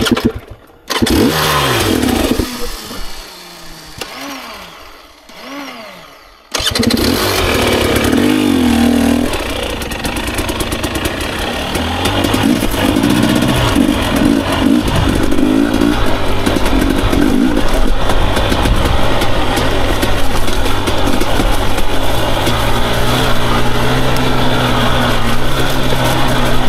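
Husqvarna TE250i two-stroke dirt-bike engine starting about a second in and blipped a few times. From about six seconds it runs loud under load, revs rising and falling as the bike is ridden.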